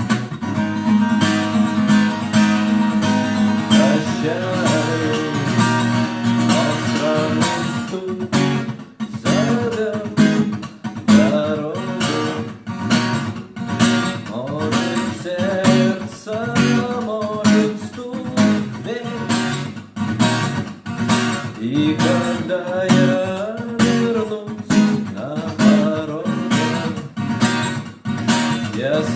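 Music: acoustic guitar strumming chords in an instrumental passage of a song, with a melody line moving over the chords.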